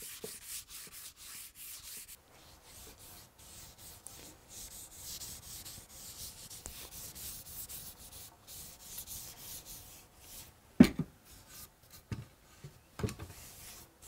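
Sandpaper and a rag rubbing by hand on a cherry wood frame, first sanding it, then wiping on finish. A few sharp knocks near the end, the loudest about 11 seconds in.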